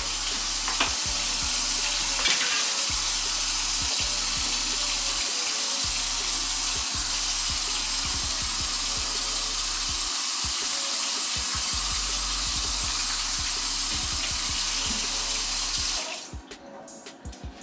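Sink tap running in a steady stream while hands are washed, shut off suddenly near the end.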